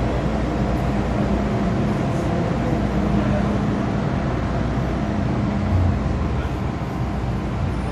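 Inside an MTR M-Train metro carriage on the move: a steady rumble of wheels on track under a low, even hum. It eases slightly near the end as the train draws into a station.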